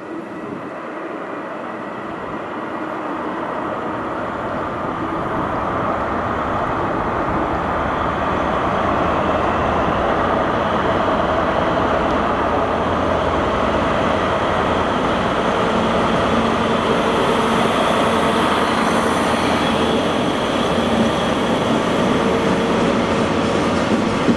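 A train approaching through the station, getting louder over about eight seconds and then running past at a steady level.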